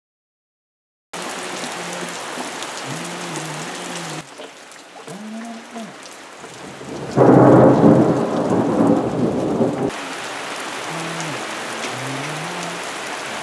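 Steady rain falling, starting after about a second of silence. About seven seconds in, a loud rumble of thunder starts suddenly and lasts about three seconds before the rain carries on.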